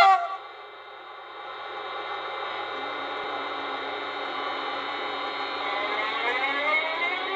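Sound system of a Roco model Siemens Vectron electric locomotive. A short, loud pitched blast at the start gives way to a steady electric hum. From about five and a half seconds, a rising whine of several tones sounds the traction converters as the locomotive pulls away.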